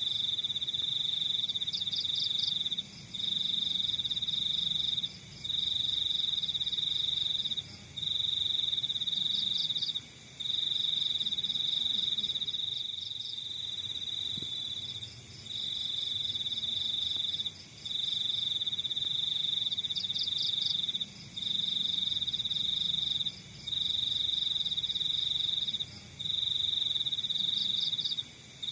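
Crickets trilling: one loud, high, steady trill that breaks off for a moment every two seconds or so, with fainter quick chirps from other insects above it.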